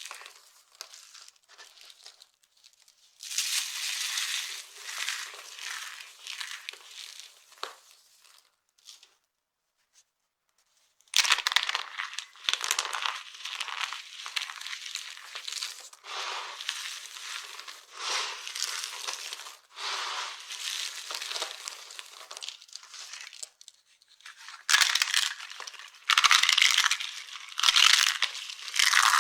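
Dry soap pieces being crushed and crumbled, giving crisp crunching and crackling in uneven bursts. The crunching stops for a couple of seconds near the middle, then starts again suddenly and louder, and is loudest near the end.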